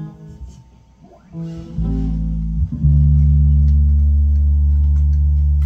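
Amplified bass guitar plucking a few single notes, then holding one low note steadily for about three seconds.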